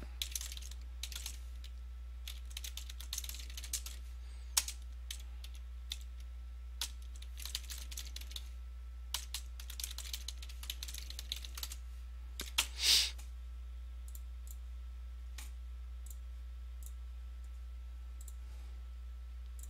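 Typing on a computer keyboard: irregular key clicks for about the first thirteen seconds, with a brief louder hiss just before they stop, then only a steady low hum.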